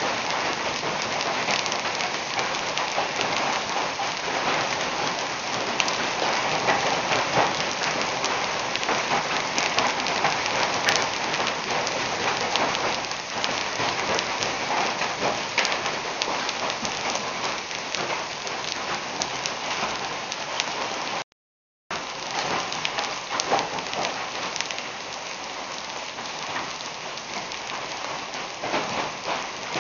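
Heavy rain and hail pelting a paved road: a dense, steady hiss pricked with many sharp ticks of hailstones striking. The sound drops out completely for about half a second, two-thirds of the way through.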